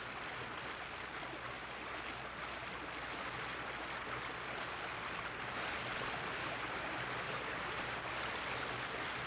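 Steady, even hiss with a faint low hum and no distinct clashes or footsteps, growing slightly louder after about three seconds.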